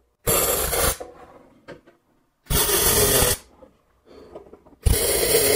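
MIG welder laying three short tack welds on steel sheet metal: three bursts of arc crackle, each just under a second long, about two seconds apart.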